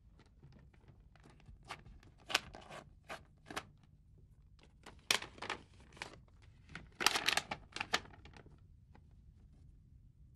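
A paper envelope being torn open and the letter inside unfolded: scattered short rips and rustles of paper, the loudest cluster about seven seconds in.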